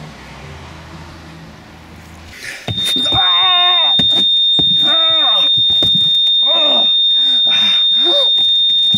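Eerie sound design: a faint low hum, then about three seconds in a loud, steady high whine starts suddenly, over warbling, wavering tones that swell and fade about once a second.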